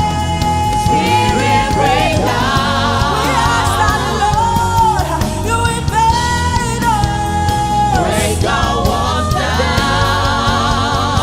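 Gospel worship song: a voice singing long held, wavering notes over band accompaniment with a steady bass.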